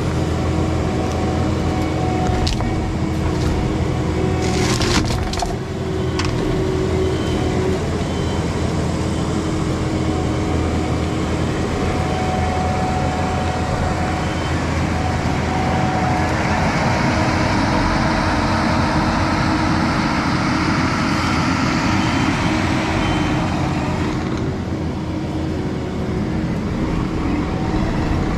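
Skid steer's diesel engine running steadily under load while a hydraulic tree shear cuts trees. Sharp cracks and wood splintering come a few seconds in, and a broad rushing hiss follows later, from branches and brush.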